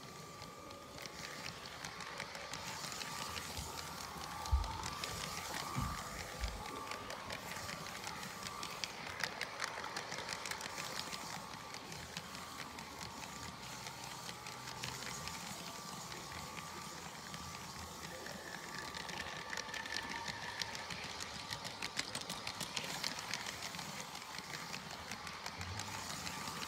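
Battery-powered Lego train running along plastic track, its small electric motor whining steadily over a fast rattle of wheels on the track, with a few low knocks about five seconds in.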